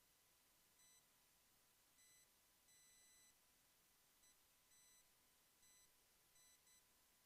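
Near silence: only faint, high-pitched electronic beeps that switch on and off at irregular intervals, about seven times, over a constant faint whine.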